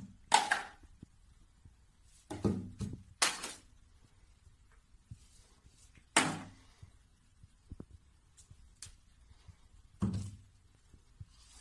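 About six separate knocks and thumps, spread out with quiet between them.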